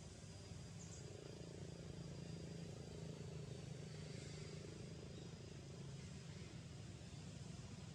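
Faint outdoor background: a steady low rumble with a thin, steady high-pitched tone above it.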